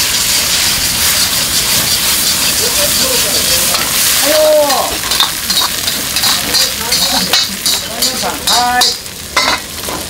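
Egg, sliced meat and garlic chives sizzling in a hot wok over a gas burner, stirred with a metal ladle. Quick clinks and scrapes of the ladle against the wok come mostly in the second half.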